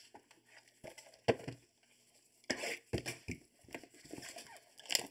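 Cardboard hobby boxes being shifted and set down on a table by gloved hands: a handful of light knocks and short scuffs.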